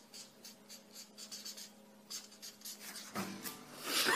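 Handwriting on paper: short, scratchy strokes coming in an irregular run. Near the end a brief voice sound rises over it and is the loudest thing heard.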